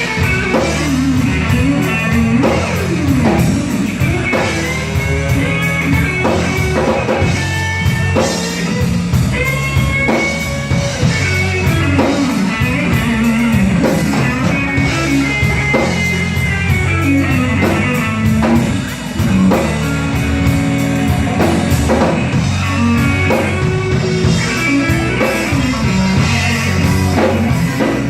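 Electric blues trio playing a slow blues: a lead electric guitar with frequent string bends over electric bass and a drum kit.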